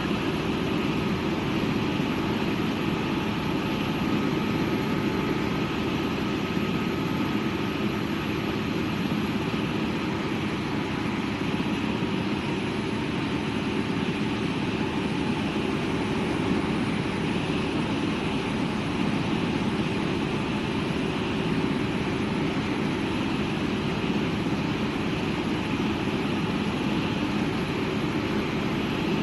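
AgustaWestland helicopter in flight, heard from inside the cabin: steady turbine and rotor noise with faint steady whining tones, holding even.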